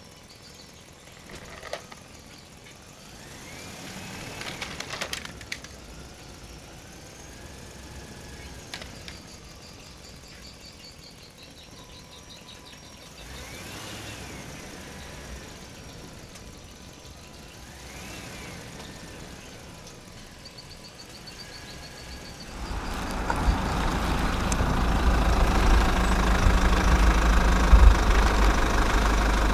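A few faint whines that rise and fall, then about two-thirds of the way in an engine starts and runs steadily with a loud rumble.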